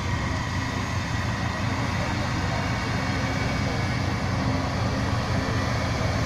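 Diesel engine of a four-wheeled armoured patrol vehicle running steadily as it drives slowly past, with the low hum of other military vehicles behind it.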